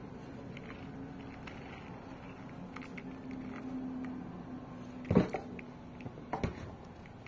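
Handling noises from unboxing a toy figure: scattered light clicks and rustles, with two louder knocks about five and six and a half seconds in, over a steady low hum.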